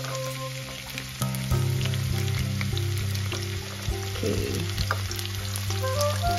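Dried anchovies and garlic sizzling and crackling in hot oil in a wok, with a utensil stirring them about four seconds in. Background music plays over it.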